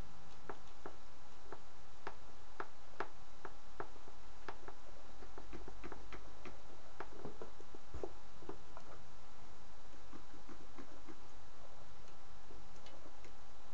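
Light, irregular clicks from a ventriloquist dummy's mouth and head controls as it is worked. The clicks come thickest in the middle and thin out near the end, over a steady background hiss.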